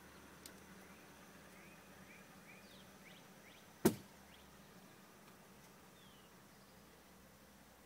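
A single sharp knock, like something hard striking the minivan's interior or a door, about four seconds in, against a quiet background with a few faint high chirps before it.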